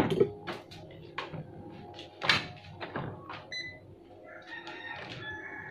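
Scattered sharp clicks and taps as a digital multimeter and its probes are handled against an electrolytic capacitor and circuit board to measure its capacitance. Faint pitched calls can be heard in the background near the end.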